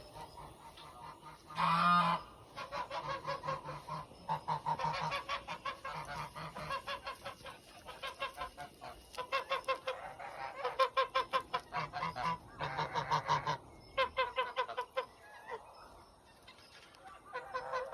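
Geese honking in rapid runs of calls, in several bouts, with one loud honk about two seconds in.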